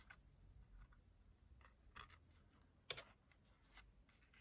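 Near silence with faint scattered clicks and taps from card-making materials being handled on the desk, and one sharper tap about three seconds in.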